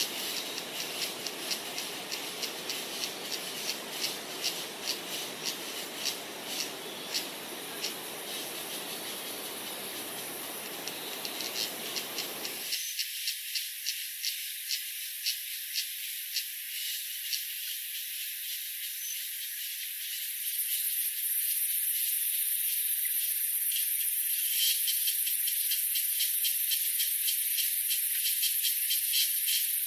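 Chorus of forest insects: rapid, uneven pulsing chirps, joined about 20 seconds in by a steady, very high-pitched insect buzz. Beneath them a low background hiss cuts off abruptly about 13 seconds in.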